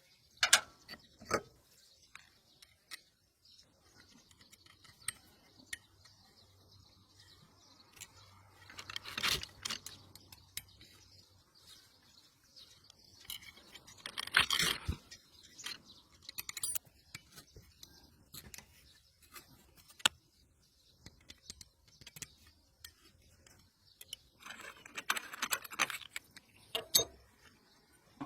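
Scattered light metallic clicks, clinks and scrapes, as of hand tools and small parts being handled during work on an automatic scooter, with short busier bursts about nine, fourteen and twenty-five seconds in.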